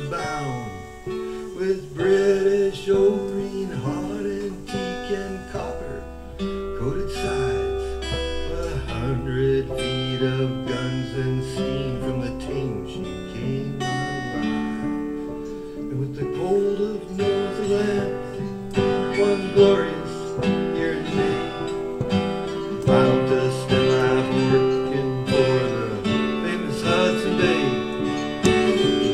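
Acoustic guitar music, strummed and picked steadily, in an instrumental stretch of a folk ballad with held accompanying notes.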